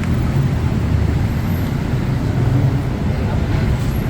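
Steady low rumble of road traffic, with vehicle engines running on a busy city road.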